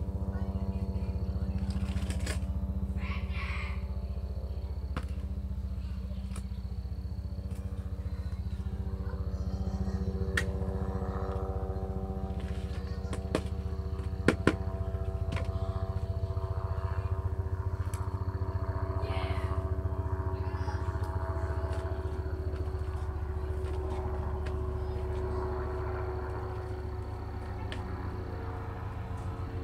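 A steady low motor hum with several steady tones above it. Two sharp knocks come about fourteen seconds in as plastic plant pots are handled.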